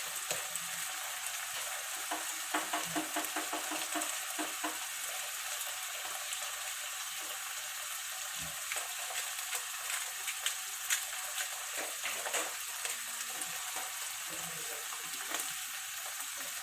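Tuna sauce sizzling in hot olive oil in a pan, a steady hiss, while a utensil stirs it with scattered clicks and taps against the pan.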